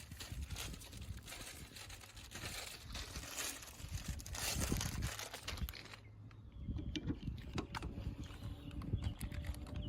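Crinkling and rustling with scattered light clicks as the replacement rear wiper arm is handled, going quieter about six seconds in, where a faint steady hum remains.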